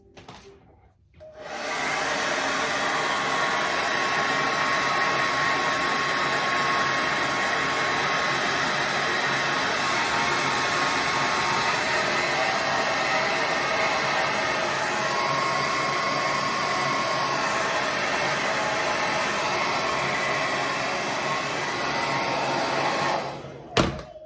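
Hand-held hair dryer running steadily. It switches on about a second in and cuts off near the end, followed by a sharp click.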